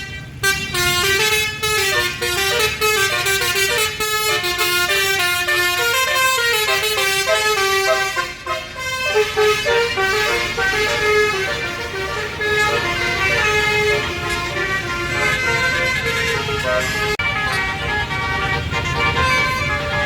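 A tour bus's Basuri telolet horn, a multi-tone electric horn, playing a melody in quick stepped notes, with the bus's engine running underneath.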